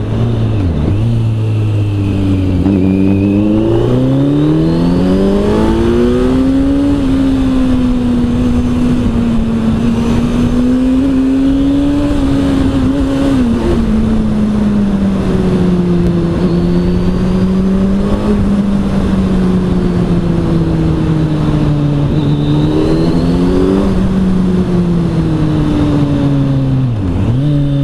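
Kawasaki Z900 inline-four engine through an Arrow aftermarket exhaust, heard onboard while riding. The revs rise and fall, with a sudden drop about halfway through and another near the end, over a steady rush of wind.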